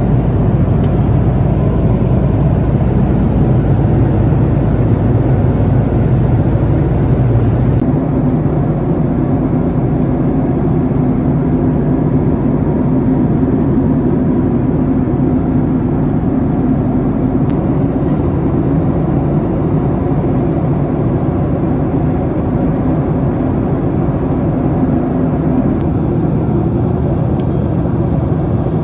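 Steady jet-engine and airflow noise of a Boeing 767-300ER heard inside the cabin, changing character abruptly about eight seconds in.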